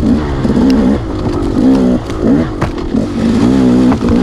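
Off-road motorcycle engine revving up and down as the throttle is opened and closed in quick succession, with a few sharp knocks.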